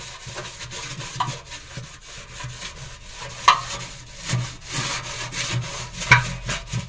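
Half a lemon coated in detergent powder and baking soda rubbed over a stainless steel sink: repeated scrubbing strokes, with two sharp knocks, about three and a half and six seconds in.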